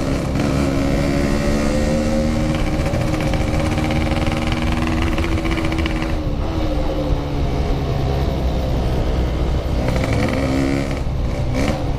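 Motorcycle engine heard from the rider's seat while riding under throttle: its note climbs steadily, drops about halfway through, then climbs again near the end. Steady wind rumble on the microphone throughout.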